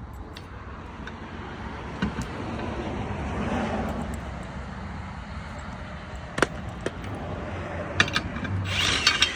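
Steady road-traffic rumble that swells and fades a few seconds in, like a car passing, with a few sharp clicks or knocks in the second half.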